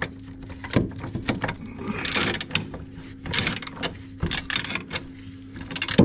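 Metal hand tools clicking and clattering in scattered knocks and short rattling bursts while working on car suspension bolts, over a steady low hum.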